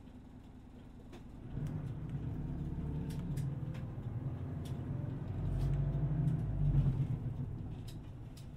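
Low engine rumble of a motor vehicle, swelling in suddenly about a second and a half in, loudest near the end, then dying away, with a few light clicks and rattles over it.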